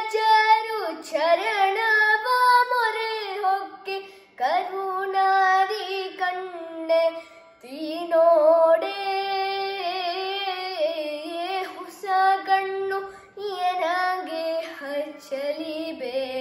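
A boy singing a Kannada devotional song, drawing out long ornamented notes on vowels in phrases broken by short breaths.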